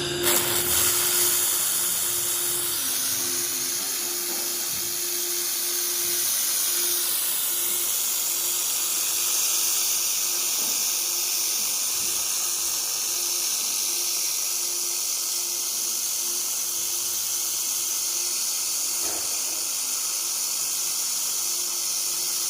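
1500 W air-cooled handheld fiber laser welder welding 4 mm mild steel: a steady, high-pitched hiss of the weld and its shielding gas, with a faint hum underneath.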